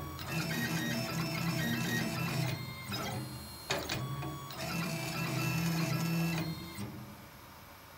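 Stepper motors of a Crossfire Pro CNC plasma table whining in stepping pitches as the gantry drives an EasyScriber across steel plate, with short pauses and clicks where the motion changes direction. The motion stops near the end, leaving a low hum.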